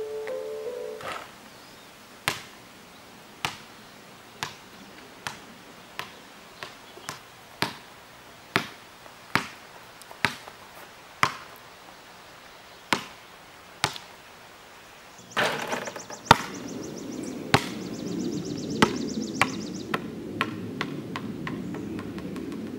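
A basketball bouncing on hard ground: single sharp bounces, each with a short ring, coming about once a second and at times closer together. About fifteen seconds in, a steady low hum with a fine high buzz comes up, and the bounces go on over it.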